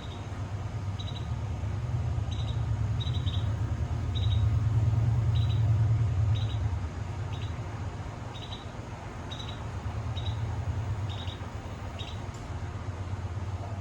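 Outdoor ambience: a steady low rumble that swells about four seconds in and eases after six, with a small bird chirping over it in short high notes, roughly one a second.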